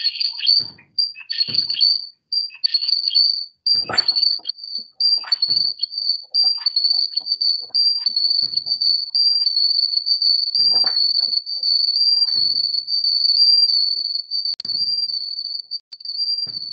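A high-pitched trilling tone, broken into short chirps for the first few seconds and then almost unbroken, with its pitch wavering slightly, over scattered short knocks and clicks.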